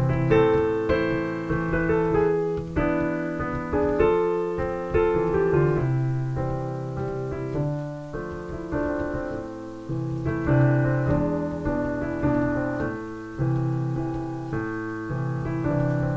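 Piano music: chords and a melody of struck notes that ring and fade, a new note or chord every half second or so.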